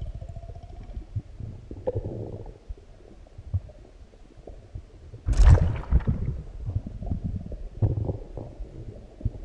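Human stomach growling and gurgling while digesting a large meal: low rumbles with scattered small pops and crackles, and one louder gurgle about five and a half seconds in.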